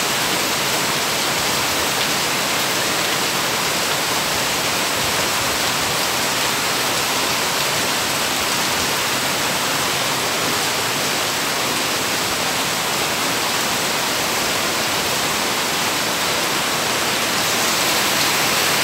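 Heavy rain falling steadily, a dense even hiss, slightly louder near the end.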